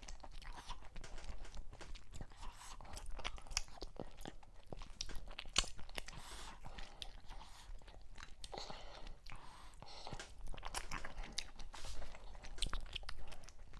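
Close-miked chewing and eating sounds as fufu and mackerel in okra soup are eaten by hand: irregular mouth smacks and clicks throughout.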